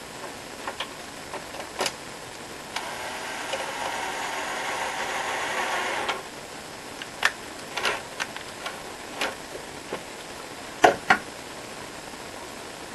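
Hand work on a keyboard's parts and cable: scattered small clicks and knocks, with a sharper double knock near the end. A steady rasping whir runs for about three seconds in the middle.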